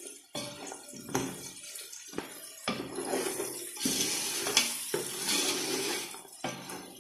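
Wooden spoon stirring and scraping chicken, green chickpeas and chopped green chillies around a large aluminium pot, in a run of scraping strokes with brief pauses, loudest in the middle; the mixture sizzles in the oil as it is turned.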